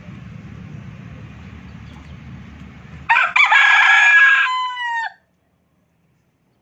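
Rooster crowing once, a loud cock-a-doodle-doo of about two seconds that starts about three seconds in and falls away at the end. Before it, a faint steady low rumble.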